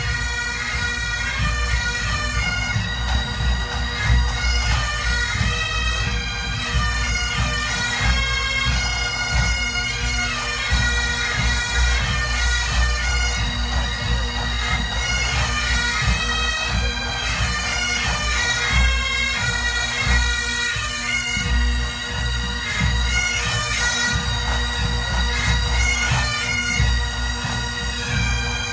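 Massed Highland pipe bands playing a tune together: many bagpipes' chanters carry a shifting melody over an unbroken, steady drone.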